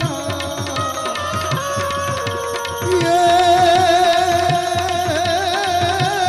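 Indian folk devotional music: a tabla beat under a melody of held notes. About three seconds in, a louder wavering note takes over.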